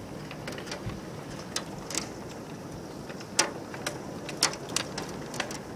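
Golf-ball-size hailstones striking, irregular sharp cracks and knocks over a steady hiss of falling hail and rain, with the hardest hits about three and a half and four and a half seconds in.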